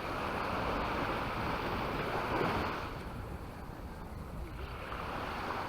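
Sea waves breaking and washing up the shore: the surf swells over the first few seconds, ebbs, and builds again near the end. Wind buffets the microphone underneath.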